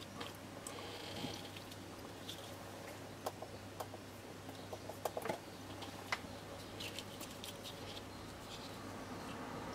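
Faint, scattered small clicks and ticks as a soldering iron's copper-wire spring tip is positioned on a circuit board, over a steady low hum.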